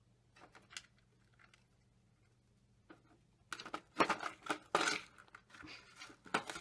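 A few faint ticks, then from about halfway a dense run of sharp clicks and crinkling as a pet hamster works at a plastic food dish in its cage. A faint steady low hum runs underneath.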